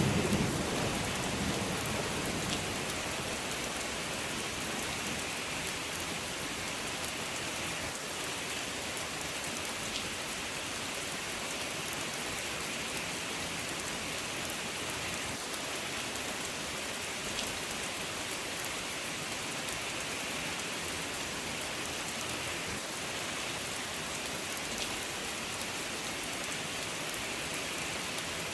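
Steady rain falling, an even hiss of many drops. In the first couple of seconds the tail of a thunder rumble dies away.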